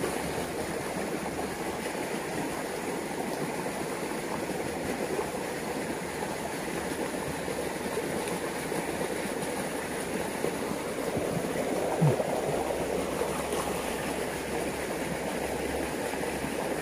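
Water flowing steadily and fast along a narrow concrete irrigation channel.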